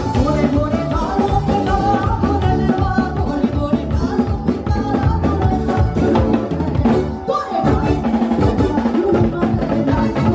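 Upbeat music with a drum kit keeping a steady beat and a voice singing over it.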